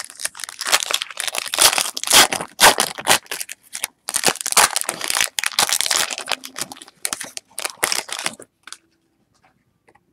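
Foil wrapper of a Topps Chrome trading-card pack being torn open and crinkled by hand, a dense crackling that stops about a second and a half before the end.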